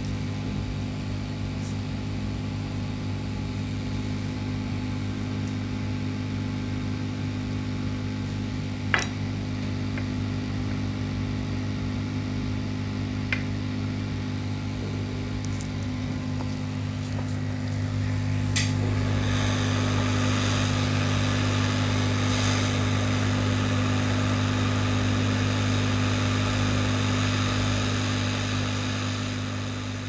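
Hot-air rework station blowing steadily with a low fan hum while the laptop's charger chip is reflowed, with two light clicks as tweezers touch the chip. About 18 seconds in the air's hiss grows louder and stays up.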